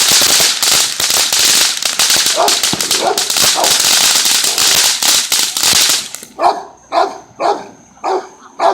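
Rapid, dense crackling of fireworks for about six seconds, with a dog barking now and then through it. Then the crackling stops and the dog keeps barking, about two barks a second.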